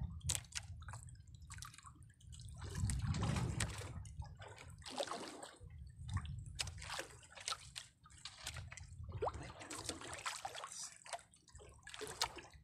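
Seawater lapping and sloshing against the hull of a small outrigger boat, with irregular small splashes and drips and a few sharp light knocks, as a fishing handline is hauled in hand over hand.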